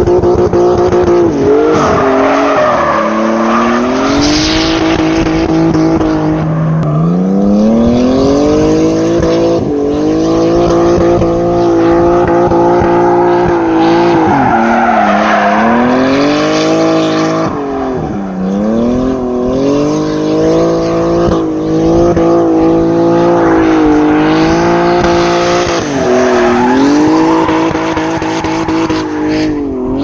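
Turbocharged BMW M50 straight-six in an E36 drifting: the engine revs climb and drop sharply every few seconds and are held high for long stretches between, with tyres squealing as they spin through the drift.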